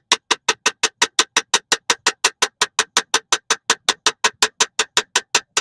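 Rapid, evenly spaced clicks or taps, about six a second, that stop abruptly near the end.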